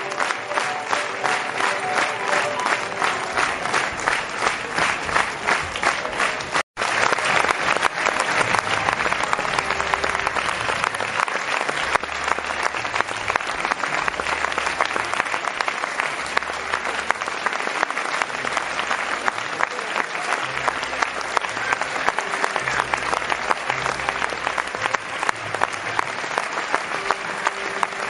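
A large theatre audience applauding a curtain call: dense, sustained clapping, fairly even at first. The sound cuts out for an instant about seven seconds in, and low sustained music notes play under the clapping after that.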